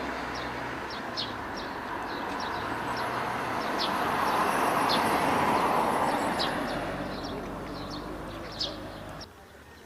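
A vehicle passing by, its noise swelling and then fading, with small birds chirping repeatedly over it; the sound cuts off suddenly near the end.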